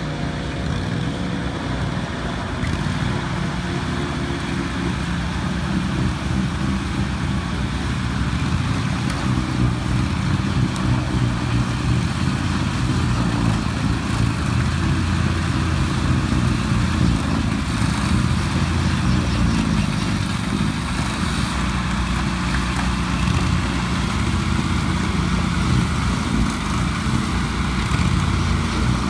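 Steady engine noise from an Argo 8x8 tracked vehicle and its front-mounted 72-inch Kimpex snow blower, which has its own small engine, as the blower works into a snowbank. It grows a little louder about six seconds in.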